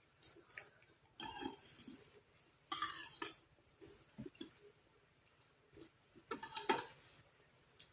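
Close-up eating sounds of bakso meatball soup: mouth noises with light clicking, and three louder bursts about a second, three seconds and six and a half seconds in.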